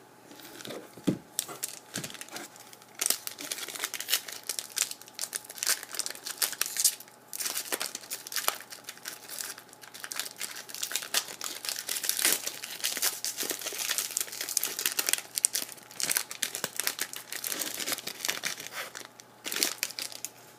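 Foil trading-card pack wrapper being torn open and crumpled: irregular crinkling and crackling, a few scattered crackles at first and then dense, continuous crinkling from about three seconds in.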